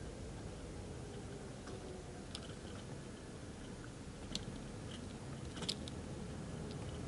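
Model railway freight train of Lowmac wagons rolling along the track: a steady low rumble of small wheels on rail, with three sharp clicks, the loudest about five and a half seconds in.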